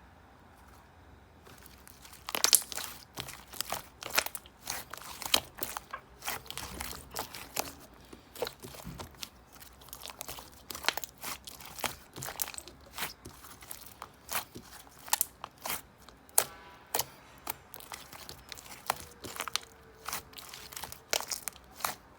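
Irregular crisp crunching and crackling, several sharp clicks a second, starting about two seconds in.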